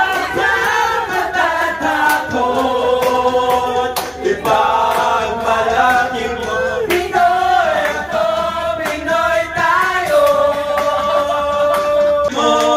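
Group karaoke: several voices singing together into microphones over backing music with a steady beat.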